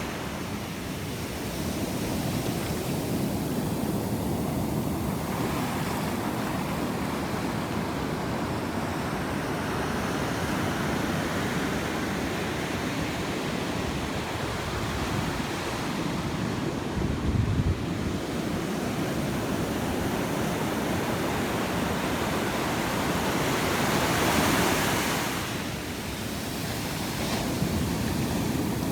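Ocean waves breaking and washing up a beach in a continuous wash, with one louder wave surging in about 24 seconds in. Wind buffets the microphone, with a brief low thump about 17 seconds in.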